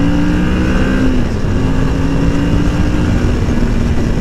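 Kawasaki Ninja 650's parallel-twin engine pulling under acceleration, rising in pitch, with an upshift about a second in, after which it climbs again and settles.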